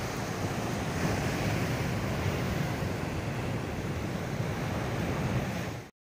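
Sea surf washing onto a sandy beach, a steady rush of waves that cuts off suddenly near the end.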